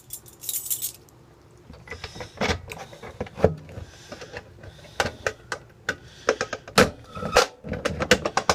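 Irregular clicks, knocks and rattles of a Notifier NBG-12L fire alarm pull station being opened, reset and shut by hand, with a quieter pause about a second in.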